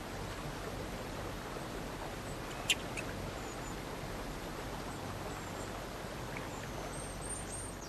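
Outdoor nature ambience with a steady soft hiss. A single sharp, high squeak comes a little under three seconds in, with a fainter one just after, and a few faint high chirps come near the end.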